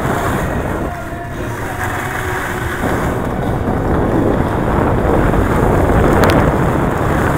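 Loud, steady rushing noise of a downhill run on snow: wind buffeting the microphone of a glasses-mounted camera, mixed with the scrape of sliding over the snow.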